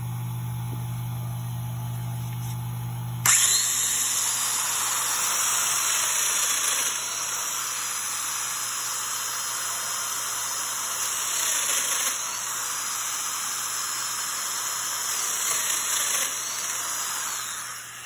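Festool Domino DF 500 joiner and its hooked-up dust extractor switched on about three seconds in, running with a loud steady whine and hiss, with small swells as the cutter plunges 15 mm mortises into the plywood, then stopping just before the end. Before that, only a steady low hum, which is the vacuum clamp's pump running.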